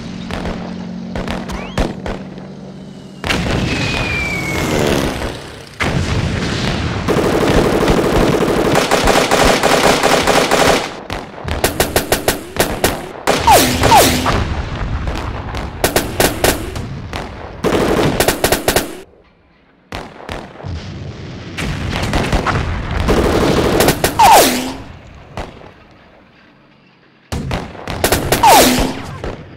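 Battle sound effects: bursts of machine-gun and rifle fire mixed with explosions, in several loud bouts broken by short lulls.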